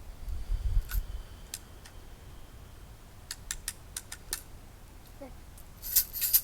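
Sharp clicks and snaps from a Daisy spring-air BB rifle being handled, cocked and fired. They come one at a time at irregular spacing, with a low rumble in the first second and a louder cluster near the end.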